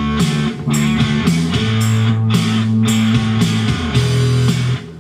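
Guitar-led rock music with a steady drum beat, played loudly through speakers driven by a homemade 15-watt-per-channel stereo amplifier kit board turned up to about half volume as a test of the newly built amp.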